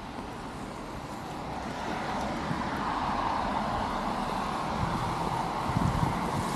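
Car driving on a wet road, its tyres hissing through the water on the asphalt, growing louder over the first few seconds.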